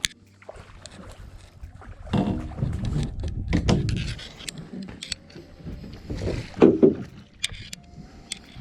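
Knocks and bumps on a small fishing boat as someone climbs down and moves about the deck handling gear, loudest about seven seconds in.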